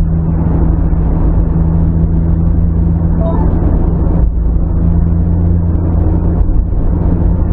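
Steady drone of a car's engine and tyre noise inside the cabin while driving at motorway speed.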